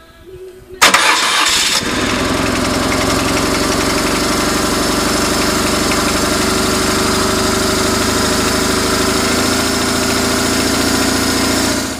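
BMW oilhead flat-twin boxer engine started about a second in, catching with a brief loud burst, then running steadily before it is shut off just at the end.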